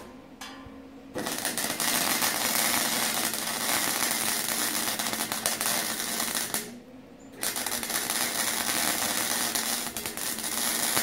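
Electric arc welding on steel: the arc crackles and sizzles in two runs, with a short break about six and a half seconds in.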